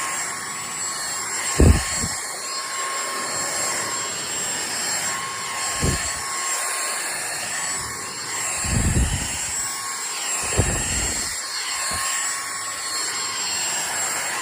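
Vacuum cleaner running steadily with a high motor whine, broken by a few short, dull low thumps, the loudest about a second and a half in and another cluster around nine seconds.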